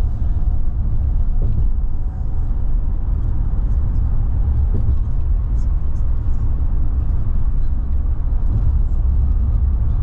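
Steady low rumble of a car's tyres and engine, heard from inside the cabin while driving.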